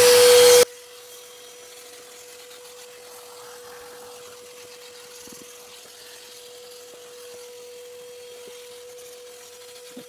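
Gaocheng vacuum cleaner running, heard faintly as a steady whine while its hose works over the car's floor carpet. A much louder rush of vacuum noise cuts off abruptly about half a second in.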